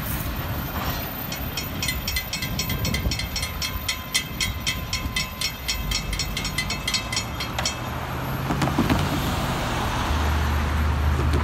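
Level-crossing warning bell ringing rapidly, about five strikes a second, then falling silent about seven and a half seconds in. Road cars then drive past close by, their low rumble the loudest sound near the end.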